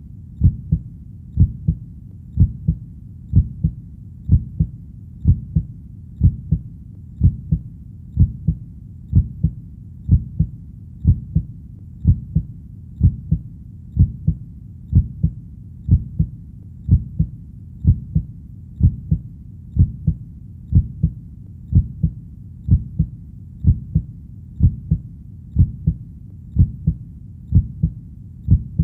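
A heartbeat: steady, evenly paced deep double thumps (lub-dub), about one beat a second, over a faint low rumble.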